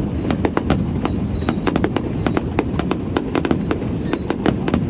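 Fireworks display: rapid, irregular bangs and crackles, several a second, over a continuous low rumble, with a thin high whistle wavering above them.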